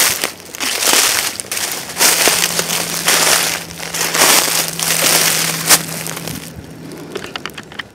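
Footsteps crunching through dry fallen leaves at a walking pace, the crackle of leaf litter with each step, about one to two steps a second.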